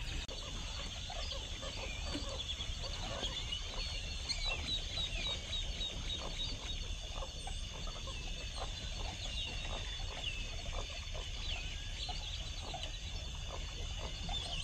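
A chorus of many birds calling and chirping, with a quick run of repeated chirps about four seconds in, over a steady high-pitched drone.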